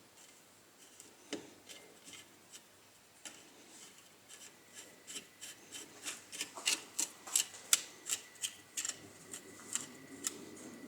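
A flat screwdriver turning the brush-holder cap into an angle grinder's housing, making short scraping clicks. They are sparse at first, then come quicker and louder from about four seconds in.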